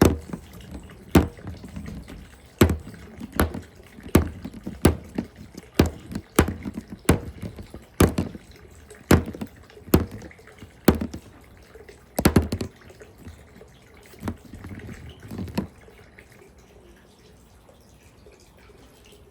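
Balls running down a water marble run: irregular sharp clicks and clacks as they hit the track pieces, about one to two a second, over watery dripping and splashing. The clicks stop a few seconds before the end, leaving faint water sounds.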